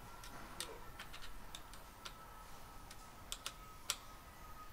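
Faint, scattered metallic clicks of a small wrench on the brake hose's compression screw at a hydraulic disc-brake lever. The screw is being tightened to squeeze the olive and seal the hose in the lever. The clicks are irregular, about a dozen, the loudest two coming a little after three seconds and near four seconds.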